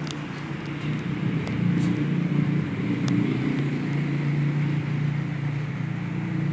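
Mitsubishi Electric C56-GW 56-inch industrial ceiling fans running: a steady low motor hum under the rush of air from the blades, which are noisy. It grows louder over the first two seconds, with a few faint ticks early on.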